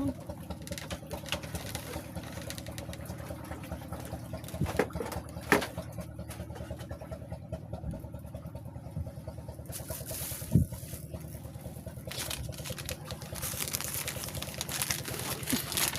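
A steady low mechanical hum, like a small motor running, with a few sharp knocks.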